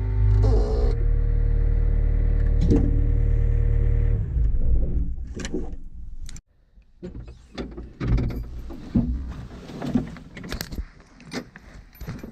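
Excavator diesel engine running steadily under load, fading out about five to six seconds in. After that come scattered light knocks and scrapes.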